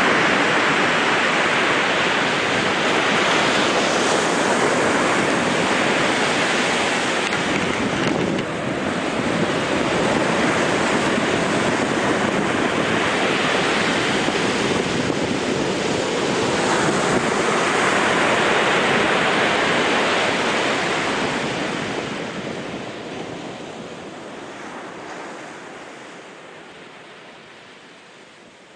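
Baltic Sea surf washing onto the shore, mixed with wind on the microphone: a steady rushing that swells every few seconds, fading down over the last several seconds.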